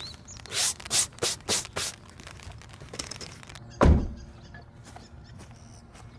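A quick run of five short rustling or scraping strokes, then a single heavy, dull thump a couple of seconds later, like gear being handled and set down.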